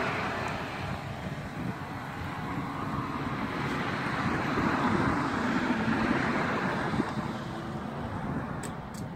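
Gasoline flowing from a pump nozzle into a Triumph motorcycle's fuel tank: a steady rushing hiss that swells a little midway, with a few sharp clicks near the end.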